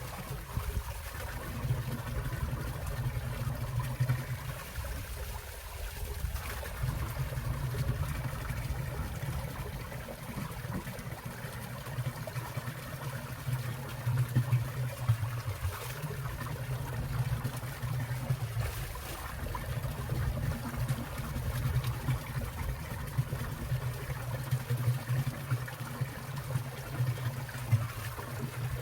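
Winter mountain stream: water flowing and trickling among ice and rocks, a steady rushing sound with a deep low rumble underneath and faint drips and splashes on top.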